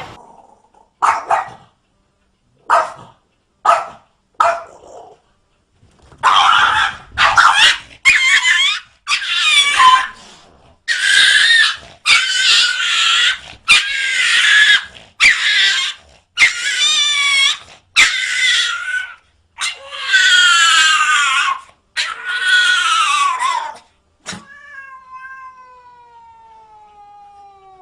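A cat yowling over and over: a few short cries, then a string of long, wavering, loud caterwauls. Near the end a single long tone glides downward in pitch.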